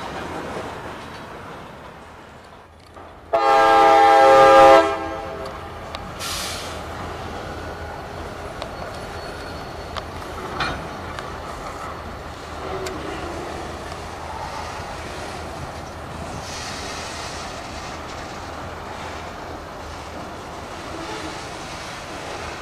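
A freight train's diesel locomotive air horn sounds one chord-like blast of about a second and a half, a few seconds in. Freight cars roll past with steady wheel noise.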